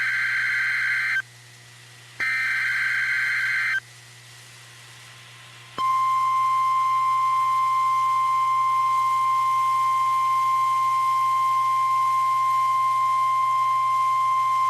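Emergency Alert System SAME header data bursts: two short buzzy screeches about a second apart. About six seconds in, the NOAA Weather Radio warning alarm tone starts, a single steady high tone held for about nine seconds. It signals that a warning broadcast, here a flash flood warning, is about to be read.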